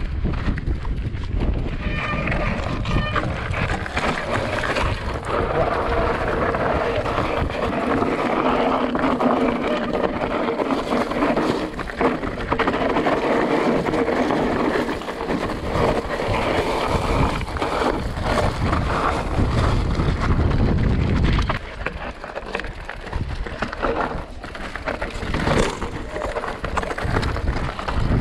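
Wind buffeting the microphone with a deep rumble, plus a steady rushing noise that is strongest in the middle stretch.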